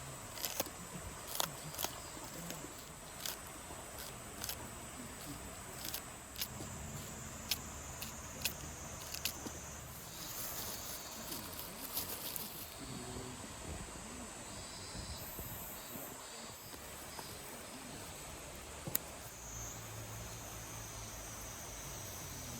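Wood campfire crackling, with irregular sharp pops that come thickest in the first half, over a steady hiss and a steady high-pitched drone.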